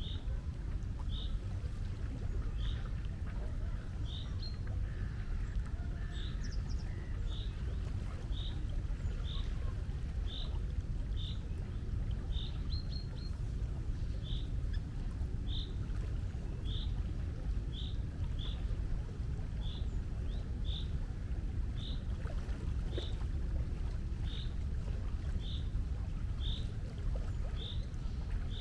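Steady low rush of the sea, with a small bird repeating one short, high chirp at an even pace, about every three-quarters of a second.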